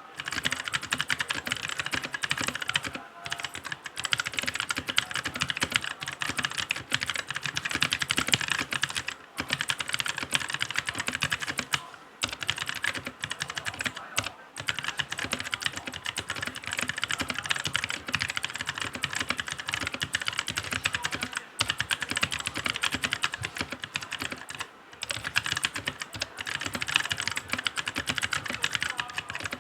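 Royal Kludge RK G68 65% mechanical keyboard with tactile brown switches being typed on fast and continuously, a dense run of key clicks broken by a few brief pauses.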